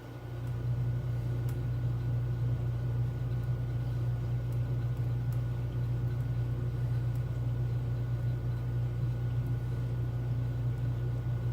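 A small motor running with a steady low hum, switched on just as the sound begins.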